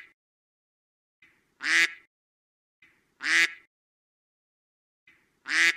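Duck quacking, three short raspy quacks spaced about a second and a half to two seconds apart.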